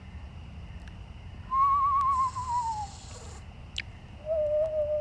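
Screech owl calling twice: a quavering whistle that falls in pitch, with a hissing rasp over it, then a lower, level quavering trill near the end.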